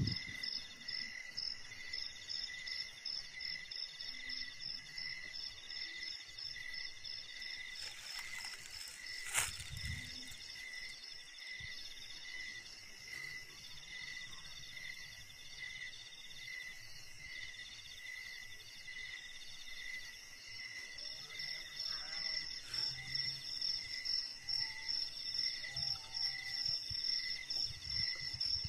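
A chorus of forest insects calling at once, each at its own pitch: one chirps slowly and steadily, another trills in long phrases that start and stop, and a third pulses rapidly. A single sharp click cuts through about nine seconds in.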